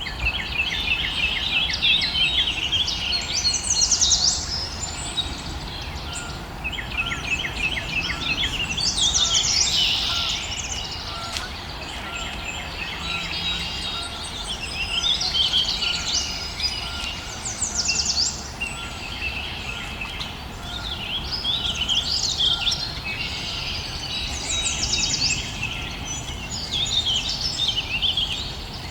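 Several birds singing and calling at once, a dense mix of chirps, trills and quick runs of repeated notes, over a steady low background rumble.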